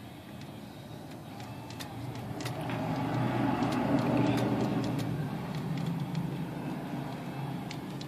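A vehicle passing, its low engine rumble swelling for a few seconds and fading again, with scattered light clicks of small metal typewriter parts being handled.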